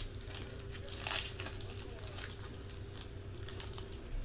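Hands opening a foil trading-card pack: the wrapper crinkles and tears in short, irregular rustles, with a louder crackle about a second in.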